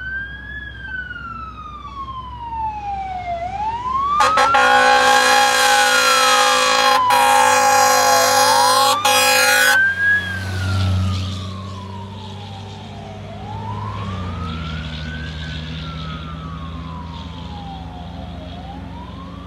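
Fire engine responding with its siren on a slow wail that rises and falls every two to three seconds. About four seconds in, a loud air horn blasts for some five seconds over the siren. The truck's diesel engine then rumbles as it passes, and the wail carries on as it pulls away.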